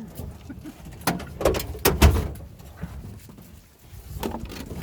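A series of sharp knocks and clunks, most of them about a second or two in and another near the end, over a low rumble.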